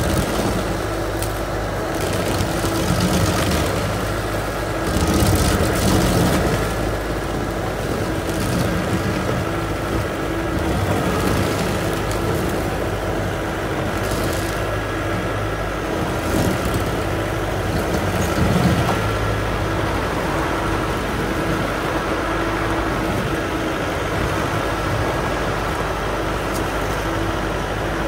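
Carlton tracked stump grinder running steadily at working speed while its cutter wheel grinds into a stump, with louder surges of chipping noise every few seconds as the teeth bite the wood; steadier near the end.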